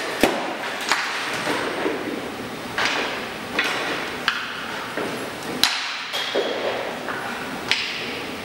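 Skate blades scraping across synthetic plastic ice as an ice hockey goaltender pushes, drops into butterfly saves and recovers, with about six sharp knocks and thuds of pucks and pads striking spread through it.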